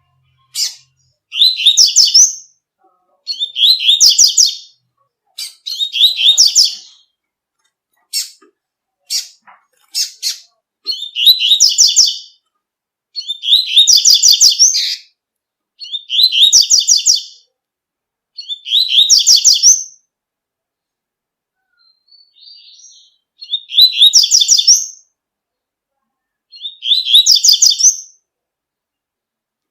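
Double-collared seedeater (coleiro) singing its tui-tui song: about ten short, high, fast phrases of repeated rising notes, with brief pauses between them. A few single sharp chips come between the phrases in the first part.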